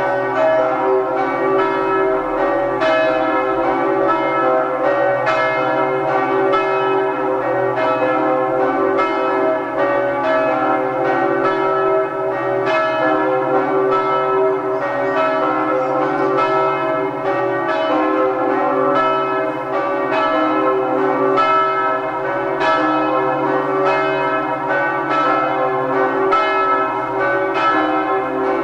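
Church bells pealing together, their strokes following one another without a break over a lasting hum.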